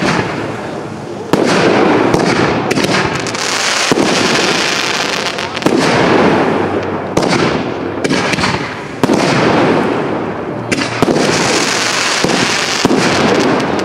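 Fireworks display: shells and comets firing and bursting in quick succession, about six loud bangs a couple of seconds apart. Each bang is followed by a rushing hiss that dies away.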